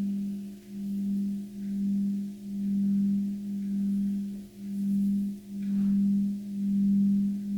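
Tibetan singing bowl sounding a sustained low tone, with fainter higher overtones, that swells and dips about once a second.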